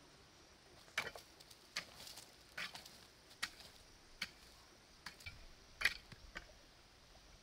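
Metal hoe blade chopping into dry, stony soil: about seven sharp, crunchy strikes, each a little under a second apart.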